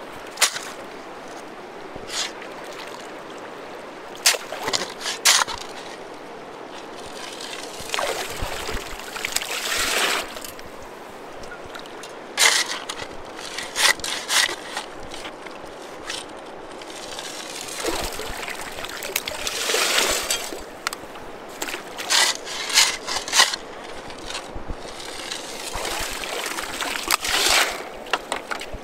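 Water sloshing and splashing in irregular bursts as a gold pan is swirled and dipped in river water, over the steady rush of the river.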